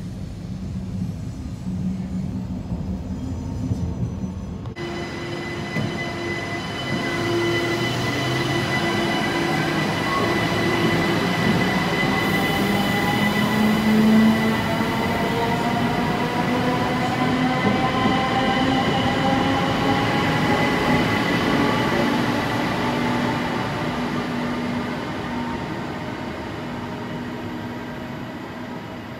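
A train rolls past for the first few seconds. Then an SNCB electric multiple unit pulls out of an underground station platform, its traction motors whining and rising slowly in pitch as it gathers speed, over wheel and rail noise with a steady high tone. The sound is loudest in the middle and fades as the train moves away.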